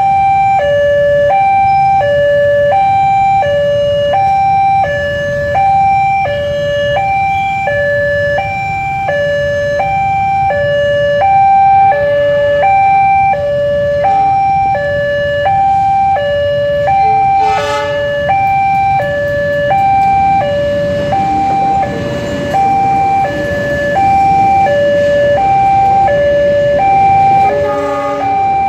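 Indonesian level-crossing warning alarm sounding continuously, an electronic two-tone signal alternating evenly between a higher and a lower note. In the last several seconds the rumble of a passing train builds underneath it.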